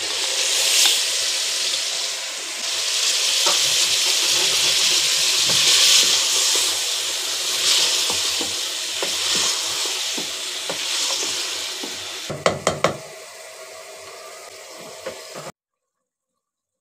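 Sliced onions sizzling as they hit hot masala in a pressure-cooker pot, stirred with a wooden spoon so the sizzle swells and ebbs every second or two. A few sharp knocks come near the end, then the sizzle quietens and cuts off shortly before the end.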